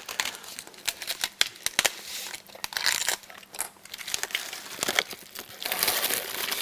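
Clear plastic wrap on a new automatic transmission valve body's backing card being torn open and pulled off, crinkling with many sharp crackles.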